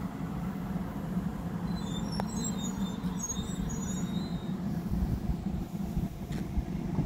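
Double-deck electric suburban train pulling in along the platform and slowing: a steady low rumble of wheels on rails, with short high-pitched brake squeals about two to four seconds in.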